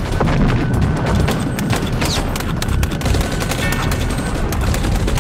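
Battle gunfire: machine guns and other small arms firing in rapid, overlapping bursts over a low, constant rumble of battle noise.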